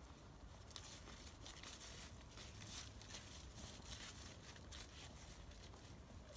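Dry fallen leaves crackling and rustling underfoot in quick, irregular bursts as a dancer whirls on them, starting about a second in.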